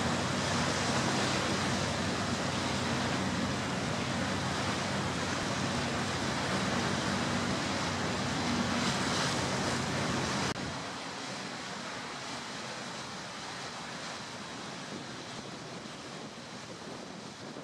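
Wind and rushing water on the deck of a moving harbour ferry, over a low steady engine drone. About ten seconds in, the sound drops suddenly to a quieter, steady hiss.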